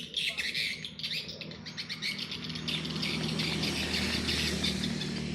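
Dagmara DTD173 cordless impact driver running steadily, with birds chirping.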